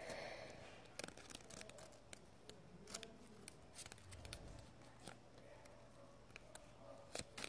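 Near silence with faint, scattered clicks and light rustles of paper and sticky tape being handled and pressed down.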